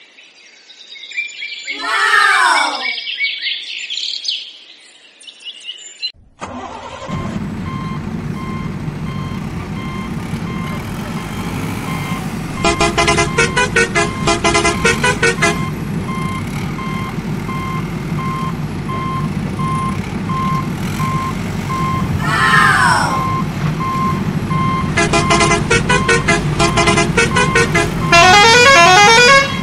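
Electronic sound effects from a toy remote-control truck: a steady engine hum with a beep repeating evenly, two stretches of horn tones, and a loud warbling siren-like tone near the end. Two falling-pitched calls come in the first few seconds before the engine sound starts.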